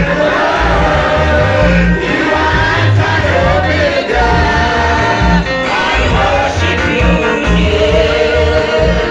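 Live gospel worship music: singing over a loud band accompaniment with a strong bass line.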